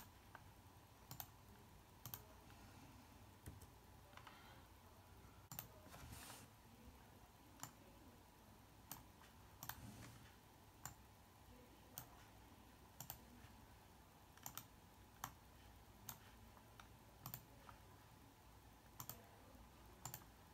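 Faint, irregular clicks from working a laptop, roughly one a second, some in quick pairs, over quiet room tone.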